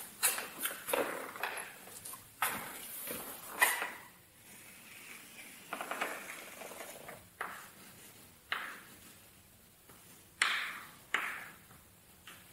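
Chalk on a blackboard: a series of short taps and knocks with a few brief scratchy strokes as lines and marks are drawn.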